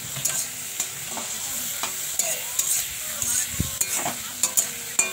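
Prawns, onion and tomato sizzling in oil in a metal kadai while a metal spatula stirs them, scraping and clinking irregularly against the pan.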